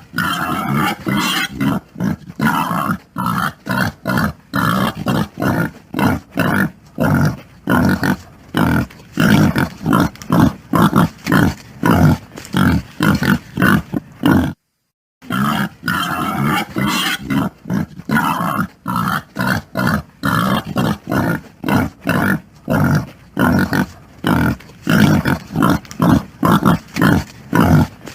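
Pig grunting over and over in short low grunts, about two or three a second, with a half-second break about halfway through.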